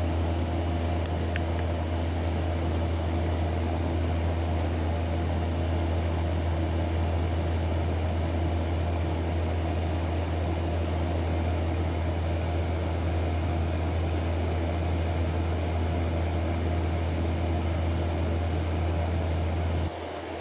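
A steady low machine hum that cuts off suddenly near the end.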